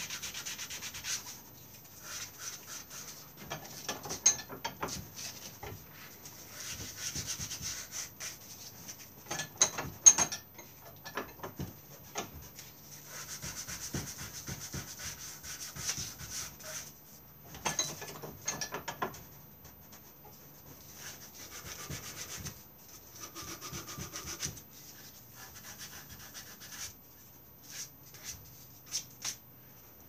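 Hand sanding of a carved wooden stick handle, in stretches of rough rubbing strokes broken by short pauses. A few sharp knocks of the wood or tool come through, the loudest about ten seconds in.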